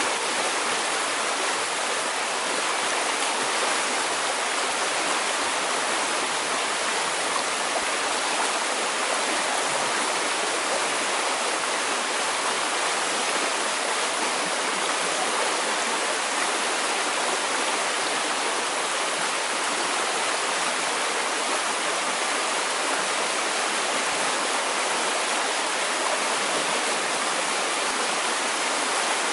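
A fast-flowing river rushing over rocks: a steady, unbroken roar of moving water.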